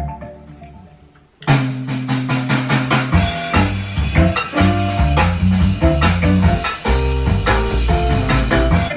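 TV series opening theme music. A short jingle fades out, then a full band tune with drums and guitar starts suddenly about a second and a half in.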